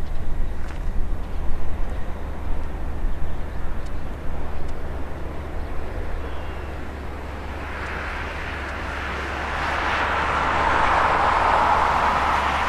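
Boeing 767 jet engines during the landing rollout: a broad rushing roar that swells from about eight seconds in and is loudest near the end, over a steady low rumble.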